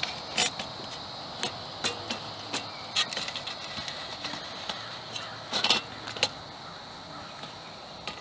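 Light metal clicks and clatter from a clip-on aluminium windscreen being handled and snapped onto a backpacking stove on a gas canister: about a dozen separate clicks, with a short cluster a little after halfway. A steady high insect drone runs behind.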